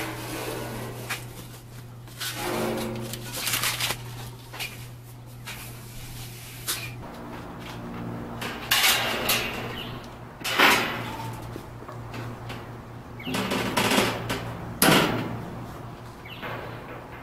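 Metal parts of a propane barbecue grill knocking and scraping as the stainless hood is lifted and fitted onto the grill body. There are several separate clanks and scrapes, the loudest about ten and fifteen seconds in, over a steady low hum.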